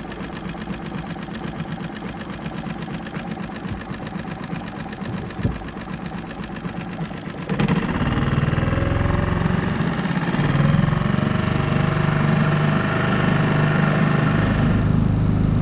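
Small pull-start outboard motor pushing a solo skiff, running steadily at low speed. About halfway through it is throttled up and runs louder and heavier as the boat gets under way.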